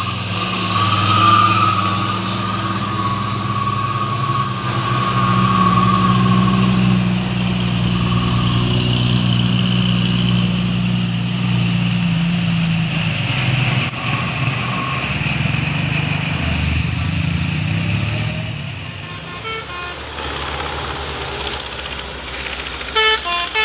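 Heavy Hino diesel trucks labouring steadily uphill as they pass close by, engines droning under load. After a change of scene near the end, a vehicle horn toots.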